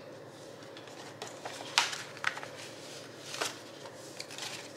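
Card-stock cash envelopes and paper dollar bills being handled: a few short rustles, the loudest about two seconds in.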